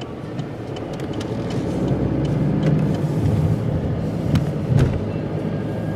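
Car engine and road noise heard from inside the cabin as a steady low rumble. It grows louder about two seconds in, then eases near the end. Two sharp clicks come a little after the four-second mark.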